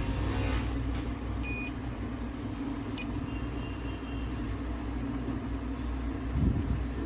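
A multimeter's continuity buzzer gives one short beep as the probes touch the board, over a steady low hum. A faint click follows a second or so later.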